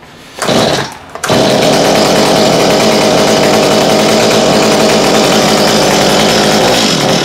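A STIHL MS210 chainsaw's single-cylinder two-stroke engine gives a short burst, then catches about a second in and runs steadily and loudly. This is its first run on a newly fitted aftermarket carburetor after years of sitting unstarted.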